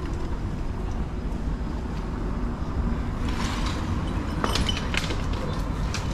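City street ambience: a steady low rumble of passing traffic, with scattered sharp clicks and clatter from about halfway through.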